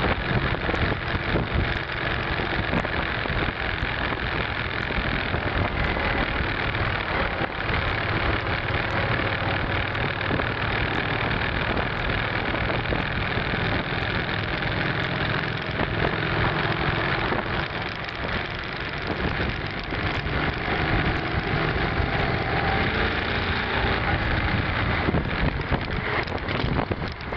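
V-twin cruiser motorcycle engine running steadily while riding in traffic, over a steady rush of road and wind noise.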